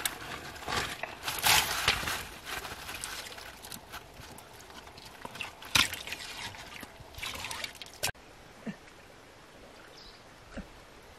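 Hands splashing and sloshing in shallow muddy water in irregular bursts, groping under a bank for fish. The sound cuts off suddenly about eight seconds in, leaving faint outdoor quiet.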